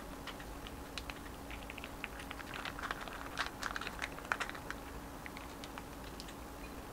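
Light, irregular clicking and crinkling as a sheet of rice paper is folded and pressed around dumpling filling on a ceramic plate. The clicks are busiest between about two and four and a half seconds in.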